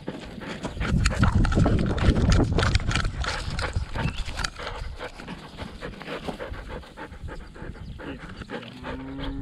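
Kelpie sheepdog panting as it runs, heard right up close from a camera strapped to its body, with rustling and knocking from the mount.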